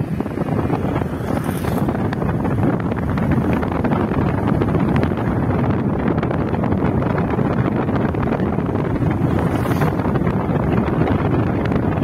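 Wind buffeting the microphone over the steady noise of a car driving along.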